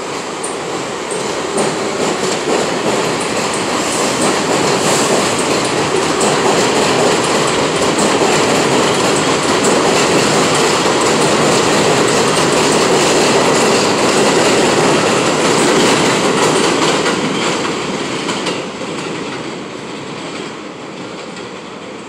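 New York City subway train passing along an elevated track, its wheels clattering over the rail joints. It builds to a peak in the middle and fades over the last few seconds as the train moves off.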